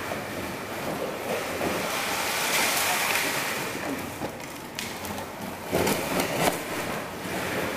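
Big-wheel drift trike's hard wheels rolling and skidding across a wet concrete floor, a steady hissing scrape that swells about three seconds in, with a couple of sharper knocks later on.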